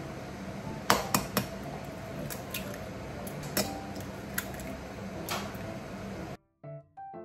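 Kitchen clatter: sharp clicks and knocks of dishes being handled and an egg cracked and opened over a glass measuring jug, with a quick run of three loud clicks about a second in. About six seconds in the kitchen sound cuts off, leaving only soft background music.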